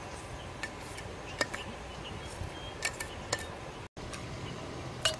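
A few light clinks of a metal cleaver blade against a small bowl as white seasoning granules are scooped out over a wooden mortar, over a steady low background noise.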